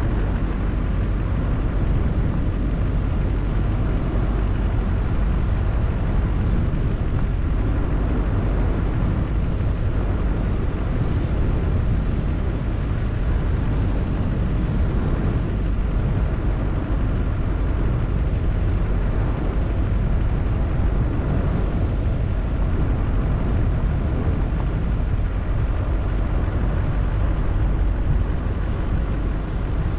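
Steady low rumble of a vehicle driving along a paved road, picked up by a camera mounted on its hood.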